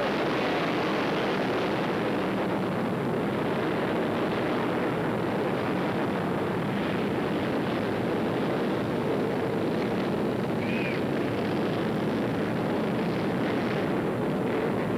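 A field of open-class short-track racing motorcycles running together on an indoor dirt track, their engines blending into one steady din.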